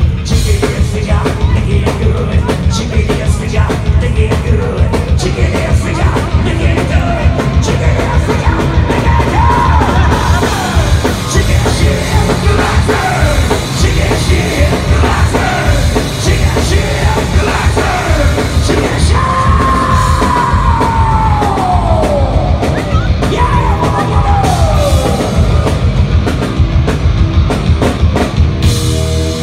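Live heavy rock band playing loud: distorted electric guitars, bass and drums with shouted, yelled vocals. The sound is heavy in the bass and there are a few long falling pitch slides about two-thirds of the way through.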